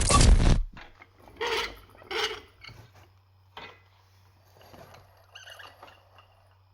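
Workshop handling noise: a loud rushing rustle that cuts off about half a second in, then scattered rustles, small knocks and clinks of parts being handled, over a faint steady low hum.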